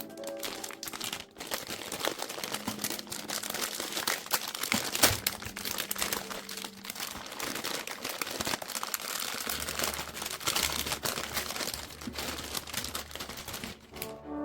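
Plastic wrapping of a trading card starter pack being crinkled and handled, a dense crackle with sharp louder snaps, the loudest about five seconds in. A low steady hum comes in about two-thirds of the way through.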